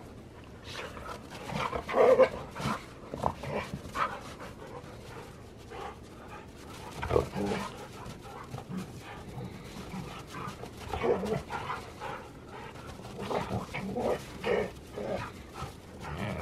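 Siberian husky and Alaskan malamute play-fighting, vocalizing in short irregular bursts, loudest about two seconds in.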